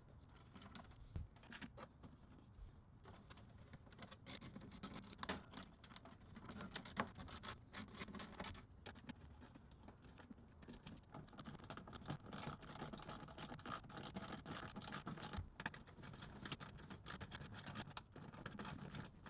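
Faint, irregular clicks, scrapes and light rattles of hands working a metal wrench and handling plastic air-intake parts in a van's engine bay, busier after about four seconds.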